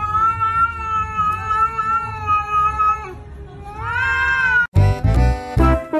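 A cat yowling at another cat face to face, as a warning: one long drawn-out call of about three seconds, then a shorter call that rises and falls. About three-quarters of the way in, the sound cuts abruptly to upbeat music.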